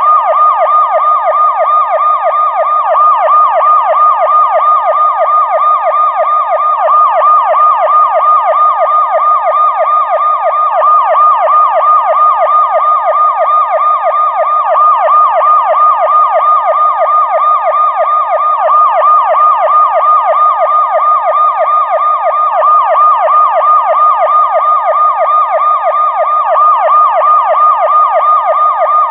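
Police car electronic siren wailing continuously in fast, even up-and-down pitch sweeps, with no break.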